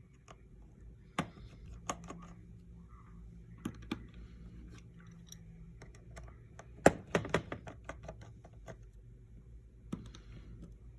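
Scattered small sharp clicks and taps of repair tools and small parts on an opened iPhone 11, with a cluster of louder clicks about seven seconds in.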